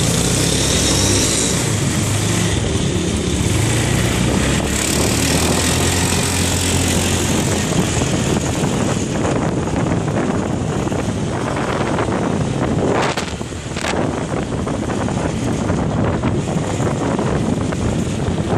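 Motorcycle engine running as the bike rides along, with a steady rush of wind and road noise.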